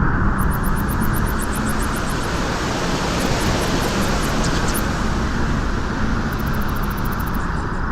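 Wind blowing on a beach: a steady, dense rushing noise with a heavy low rumble, and faint runs of rapid high ticks above it.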